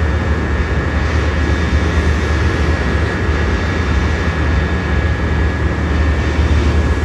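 Amtrak Superliner bilevel passenger cars rolling past at low speed on departure: a steady low rumble of wheels on rail, with a thin steady high whine over it.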